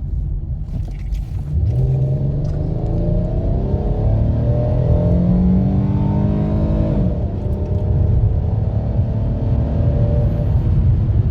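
Dodge Charger engine under hard acceleration, its pitch climbing, falling suddenly about seven seconds in as the automatic upshifts, then climbing again over a steady road rumble.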